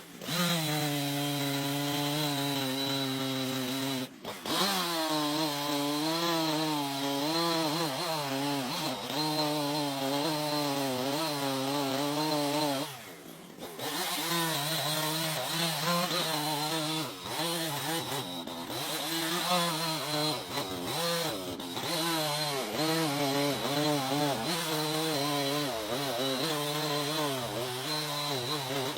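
Chainsaw running while cutting wood, its engine pitch rising and falling as the chain bites and eases off. There are brief breaks about four seconds in and again around thirteen seconds.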